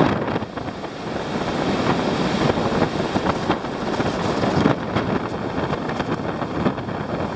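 Wind buffeting the microphone: a continuous rushing noise that swells and eases unevenly.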